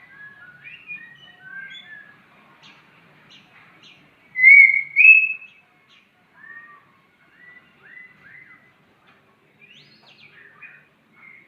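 White-rumped shama giving a series of short, clear, slurred whistles, with two loud rising whistles about four to five seconds in and quieter scattered notes around them.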